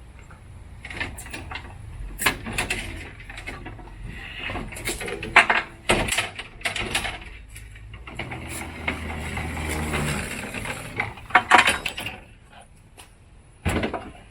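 Irregular metal clinks, scrapes and knocks of hand tools working screws and a bracket loose on a mower's drive, with several sharp clicks standing out.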